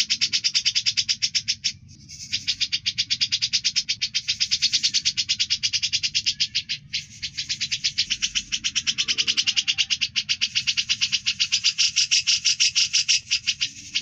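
A bird's harsh 'besetan' call: a rapid rattling run of sharp pulses, about ten a second, kept up for several seconds at a time and breaking off briefly about two seconds in and again near seven seconds.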